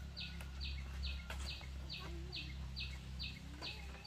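Steady chirping: one short, high chirp repeated evenly about twice a second, with a chicken clucking softly now and then over a low steady hum.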